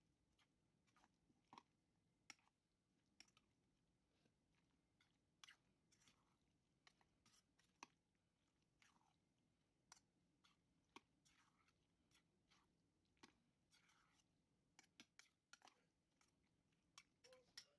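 Faint, irregular wet squelches and light clicks of a metal utensil stirring mayonnaise-dressed peas-and-carrots salad and scraping a stainless steel bowl.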